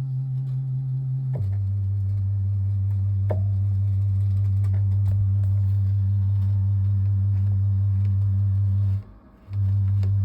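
Arturia MatrixBrute analog synthesizer holding a low, steady note that steps down in pitch about 1.4 seconds in, then stops briefly near the end and sounds again. Faint scattered clicks and ticks run under the tone, part of a noise problem that the owner links to the VCA and firmware.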